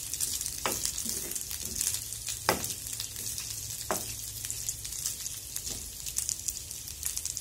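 Pork pieces sizzling and crackling steadily in a nonstick frying pan, browning in the fat they have rendered after their juices cooked off. A wooden spatula stirs them, knocking sharply against the pan three times in the first four seconds.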